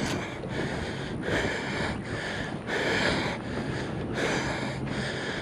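A person breathing heavily close to the microphone, with a breath about every second and a half.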